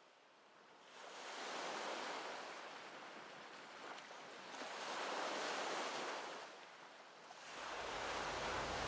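Sea waves washing in three slow surges, each swelling and fading, with a low rumble joining near the end.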